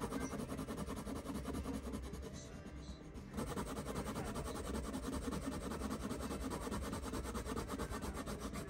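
Coloured pencil scratching rapidly back and forth on hot-pressed watercolour paper as a swatch is hatched in. The dense strokes break off briefly about three seconds in, then carry on.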